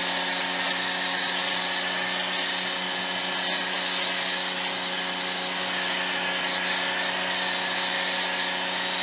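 Giraffe Tools Grandfalls electric pressure washer running steadily under load while spraying through an MJJC foam cannon. A steady motor-and-pump hum sits under the hiss of the foam spray.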